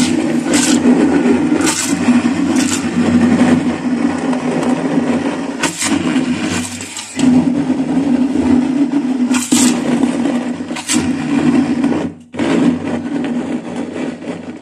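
Electric hand (stick) blender running in an aluminium pot, puréeing chopped green herbs into a marinade. A steady motor hum with sharp clicks now and then, dipping briefly about seven and twelve seconds in.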